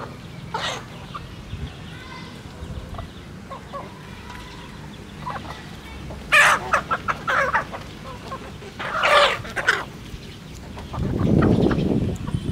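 A flock of chickens clucking while feeding, with scattered short calls and two louder clusters of quick clucks in the middle and later. A louder low rumble sets in near the end.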